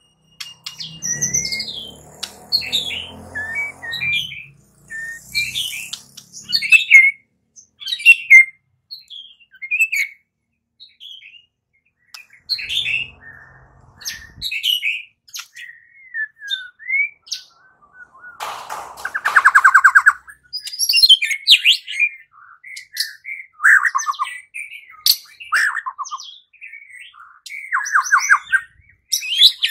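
White-rumped shama singing a varied run of short whistled phrases and chirps, with a fast rattling trill about two-thirds of the way through.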